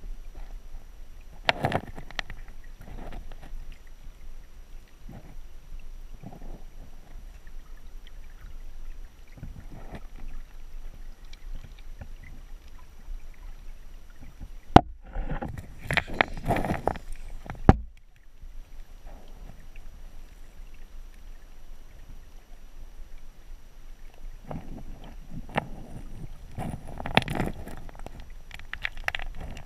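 Muffled underwater sound of a fast shallow creek through a waterproof camera housing: a steady low rush of flowing water with irregular bursts of bubbling and splashing. There are two sharp knocks about fifteen and eighteen seconds in, where the housing bumps or is handled.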